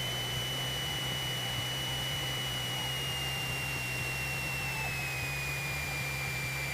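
Cessna 172 stall warning horn sounding as a steady high whistle during the landing flare, gliding slowly down in pitch: the sign of the aircraft flying close to the stall just before touchdown. A steady low engine drone lies beneath it in the cockpit.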